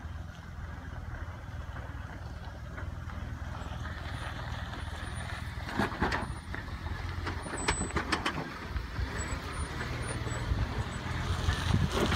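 Jeep Wrangler engine running low and steady as the Jeep crawls down a steep dirt trail, with a few sharp knocks about six and eight seconds in. The sound grows louder near the end as the Jeep comes close.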